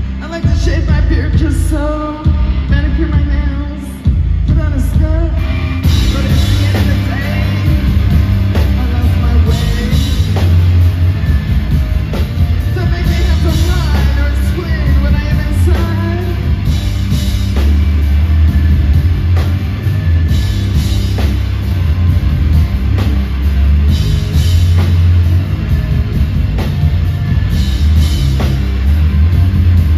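Rock band playing live, heard from the crowd: drum kit, heavy bass and guitar under a woman's voice at the microphone. The first few seconds are sparser, then the full band comes in loud about five seconds in.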